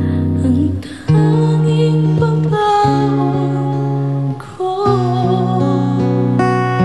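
Young female singer singing a slow, emotional Tagalog ballad over sustained instrumental accompaniment, with short breaths between phrases about a second in and again around four and a half seconds.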